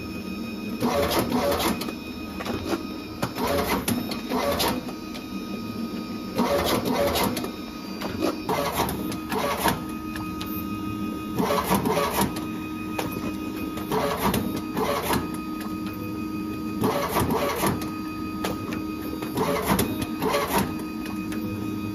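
Ultra Cut 240 automatic slitter-cutter running over a steady motor hum, trimming flyer sheets one after another with a burst of clattering cuts every two to three seconds.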